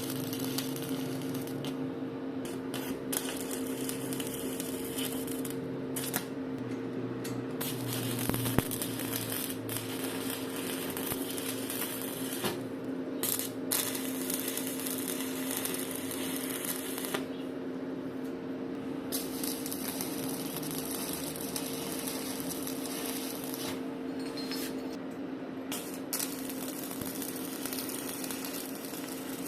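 Electric arc welding: the arc crackles steadily in runs of several seconds, stopping and restarting several times between welds, over a steady low electrical hum.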